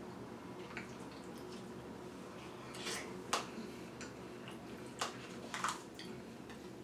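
A spoon clicking and scraping a few times against a plastic snack pot while someone eats, with soft mouth sounds, over a steady low hum.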